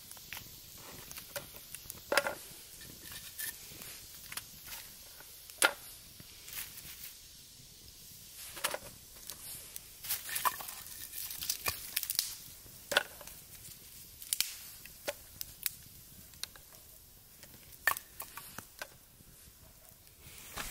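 Small wood fire crackling, with sharp pops coming irregularly every second or two.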